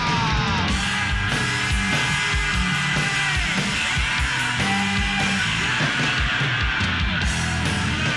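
Rock music soundtrack with electric guitar, bass and drums, playing steadily with a regular beat.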